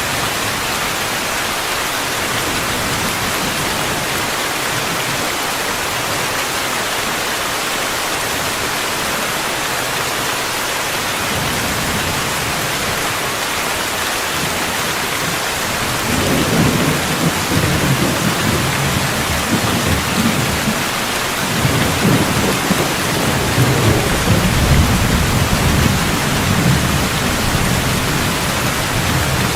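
Steady rainfall, an even hiss, joined about halfway through by a long, rolling rumble of thunder that swells and fades and keeps going to the end.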